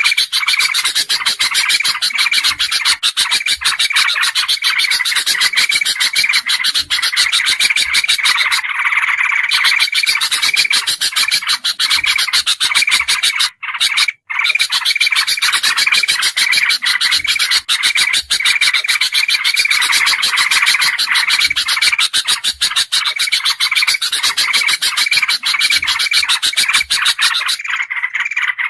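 Bird-lure recording of bulbul calls (kutilang emas, kutilang jambul and trucukan) layered into one dense, continuous racket of rapid chattering and repeated whistled notes, played to draw wild birds in. It breaks off for about half a second halfway through.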